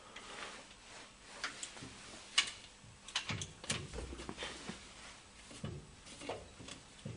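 Sparse metallic clicks and small knocks from a metal lathe's tailstock being tightened by hand. The sharpest click comes about two and a half seconds in, with a dull knock a little later; the lathe itself is not running.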